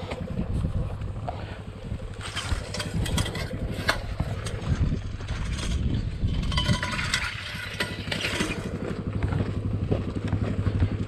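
Dirt bike engine idling with a steady low pulse, with scattered clicks and knocks over it.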